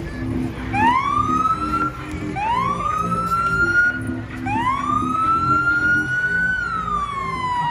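A vehicle siren whoops three times, each call rising in pitch. The last call is held and then falls slowly. Music plays underneath.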